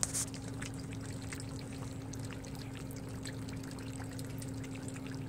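Yorkshire Terrier puppies eating from a stainless steel bowl: a steady run of small crunching and clicking sounds, over a constant low hum.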